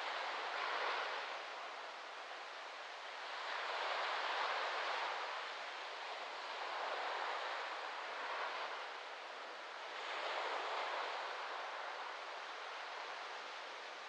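Small waves lapping and washing up a sandy beach, the surf swelling and falling back every few seconds.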